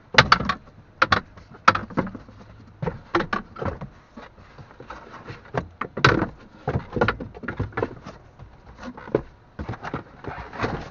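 Removed old struts and shock absorbers being handled and moved about: a string of irregular knocks and clatters.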